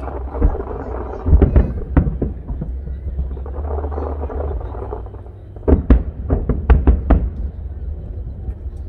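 Aerial fireworks display: shells bursting in deep booms and sharp bangs, a few in the first two seconds and a rapid cluster of about half a dozen from about six to seven seconds in, over a low continuous rumble and crowd chatter.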